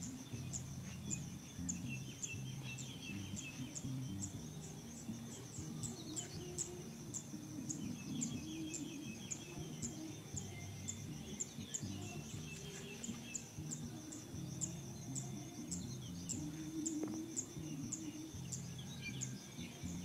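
Field ambience: a high, thin chirp repeating steadily about twice a second, with scattered bird chirps and low background music underneath.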